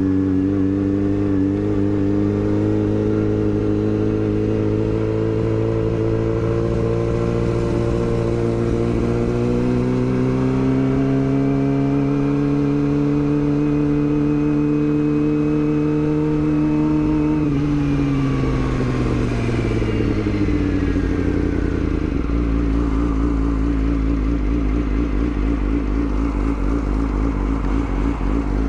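Yamaha R6 inline-four sport bike engine holding steady revs while riding, its pitch climbing gently, then dropping as the bike slows about two-thirds through and settling into a low, uneven, pulsing run.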